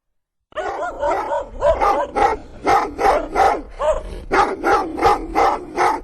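A dog barking over and over, about two to three barks a second, starting about half a second in.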